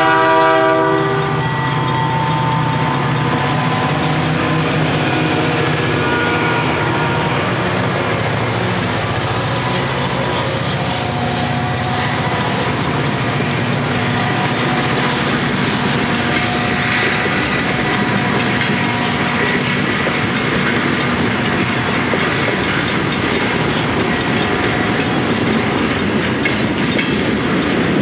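A freight train's locomotive horn sounds and ends about a second in. Then the Canadian Pacific EMD diesel locomotives pass close by under power, their engines audible for the first ten seconds or so, and the loaded freight cars rolling steadily past follow.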